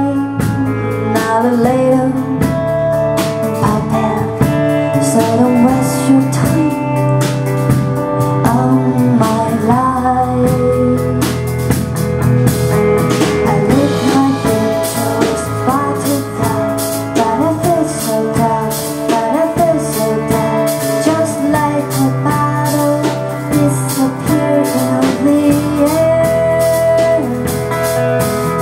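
Band music with guitar, drums and a singing voice.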